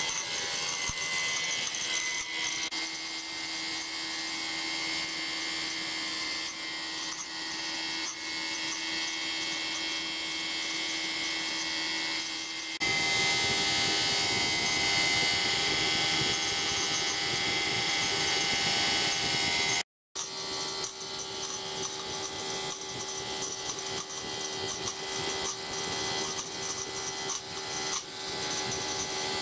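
An electric blower whirs steadily, drawing the fire of a miniature steam locomotive's butane gas burner while the boiler raises steam, with the burner's rushing flame underneath. The level jumps abruptly a couple of times.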